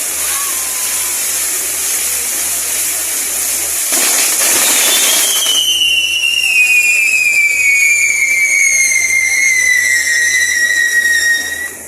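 Fireworks hissing steadily, swelling louder about four seconds in, then a single whistling firework with a long, slowly falling pitch that cuts off suddenly near the end.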